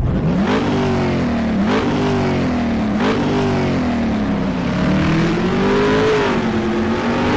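Car engine accelerating through the gears. Its pitch climbs and drops at two quick shifts, then rises in a longer, slower pull.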